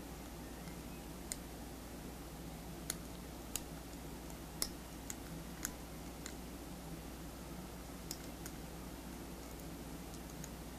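Lock pick working the pin tumblers of a BlueSpot shackle lock under very light wrench tension: scattered small clicks at irregular intervals, about a dozen, over a steady low hum. The lock has not yet opened.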